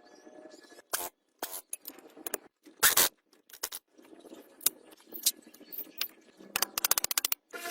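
Hand work on metal parts: separate scrapes and knocks, with a quick run of clicks near the end.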